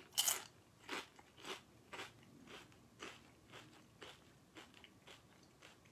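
A bite into a thin, crispy curry-flavoured potato cracker, then crunchy chewing at about two chews a second, growing fainter.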